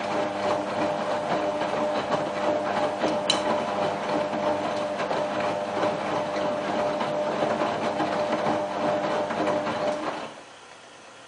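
Whirlpool AWM4066 washing machine running a cottons prewash programme, a steady mechanical whine with rattling that cuts off suddenly about ten seconds in.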